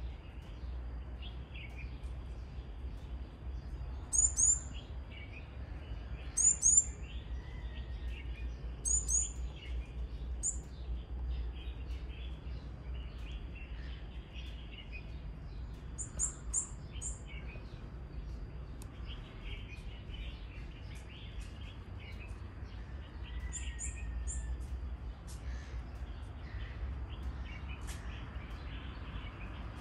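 Wild birds calling: a very high, sharp call of two to four quick notes repeats every few seconds over softer, continuous chirping and chatter, with a low steady rumble beneath.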